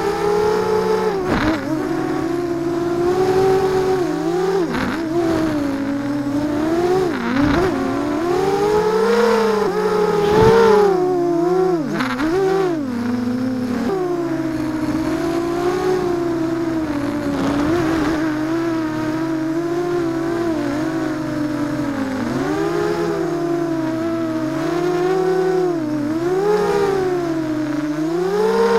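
ZMR250 racing quadcopter's brushless motors and propellers whining, heard from on board the craft, the pitch swooping up and down constantly with throttle changes, with a few short clicks.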